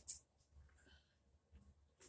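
Near silence: faint room tone, after a brief rattling noise dies away right at the start.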